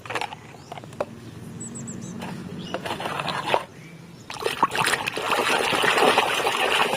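Water splashing and trickling as a muddy toy is washed, with a few knocks of handling. About four seconds in, it turns into a steady, louder rush of running or poured water.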